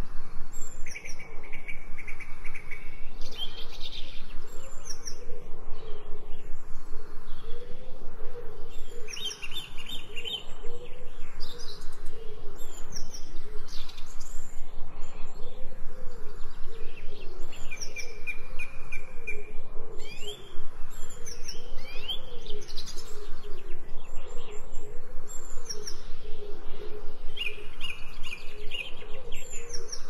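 Songbirds chirping and singing, with short repeated trills and quick downward-sliding whistles recurring every few seconds.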